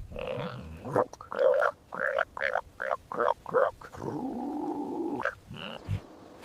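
Farm animal calls: a quick run of about eight short calls, then one longer call lasting about a second.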